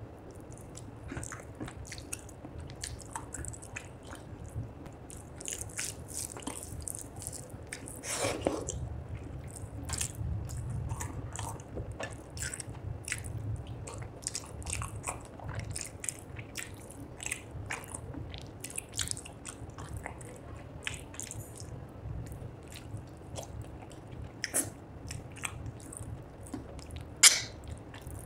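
Close-up chewing and wet mouth sounds of a person eating fish curry and rice by hand: a steady run of small clicks and squishes, with one sharp, loud click about a second before the end.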